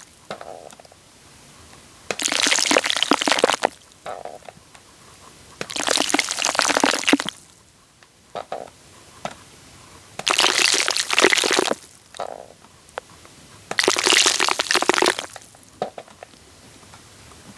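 Wet, sticky crackling right on the microphone in four bursts, each about a second and a half long and spaced about four seconds apart, with faint small squelches between them.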